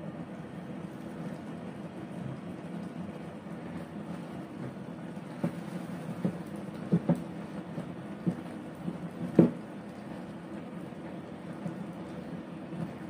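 A spatula knocks and scrapes against a nonstick frying pan while stirring simmering sweet potato leaves and sardines, several sharp knocks from about five seconds in, the loudest at about nine and a half seconds. A steady hum and hiss runs underneath.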